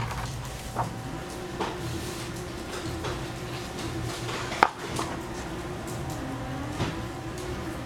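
Household background noise: a steady low hum with scattered light knocks and clatter, the sharpest a little past halfway through.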